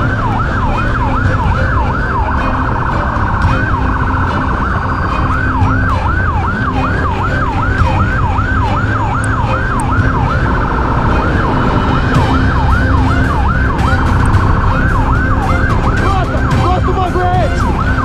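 Police siren in a fast yelp, sweeping up and down about three to four times a second with a few short breaks, over steady engine and road rumble from the vehicle in pursuit.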